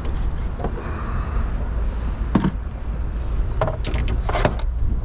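Several sharp knocks and clatters, as of gear handled aboard a small boat, over a steady low rumble of wind on the microphone.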